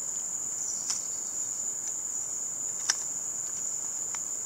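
A steady high-pitched insect chorus of crickets, with three sharp clicks of a folding camp chair's aluminium poles being pushed into their plastic hub, about one, three and four seconds in, the one at three seconds the loudest.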